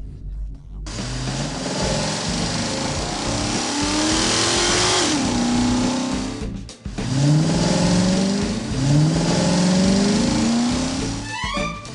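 Car engine sound effect revving up again and again, each rev a rising glide in pitch, over a steady rushing noise. The sound drops out briefly about seven seconds in, and a quick flurry of rising high tones comes near the end.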